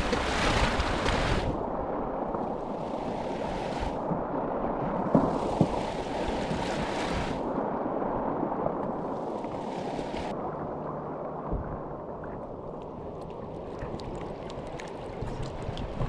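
Shallow river riffle rushing and burbling around a small boat drifting downstream, with wind buffeting the microphone on and off. Two brief knocks about five seconds in.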